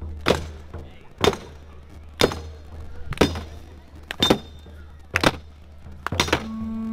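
Slow, steady beat of single percussive strikes, about one a second, over a low hum. Near the end a steady held note starts and keeps going.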